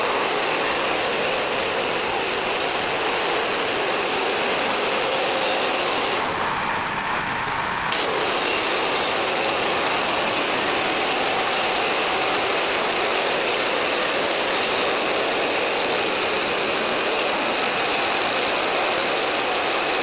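Woodland Mills HM130 portable bandsaw mill running under load, its gas engine and band blade sawing through a shagbark hickory log in one steady, loud drone. The sound eases briefly for about two seconds some six seconds in.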